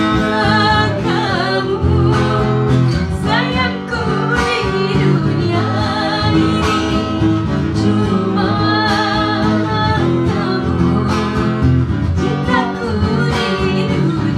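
A woman and a man singing a duet into microphones, accompanied by a strummed acoustic guitar.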